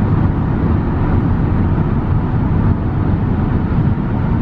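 Road noise inside a car driving at speed: a steady low hum of tyres and wind through the cabin.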